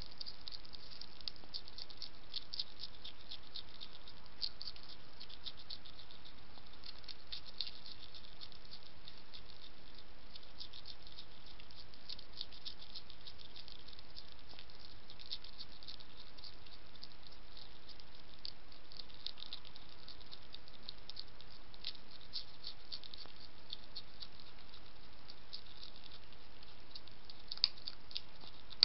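European hedgehog crunching dry kitten biscuits: rapid, irregular crisp clicks of chewing, with a single louder click near the end, over a steady faint hiss.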